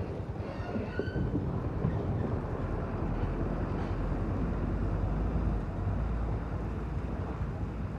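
Steady rushing of shallow floodwater running over a paved lane, with a low wind rumble on the microphone.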